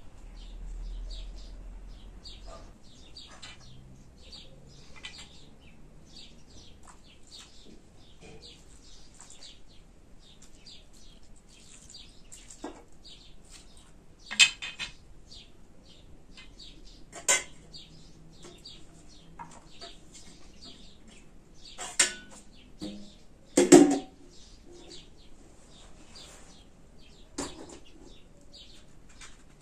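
Metal cookware and utensils clinking and clanking about five times, the loudest a little after the middle, as a metal pan is handled and set on a small gas burner stand. Small birds chirp throughout.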